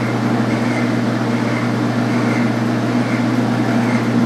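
Metal lathe running steadily under slow power feed, its cutoff tool cutting easily into an off-centre bronze 932 workpiece, so the cut runs only partway around each turn.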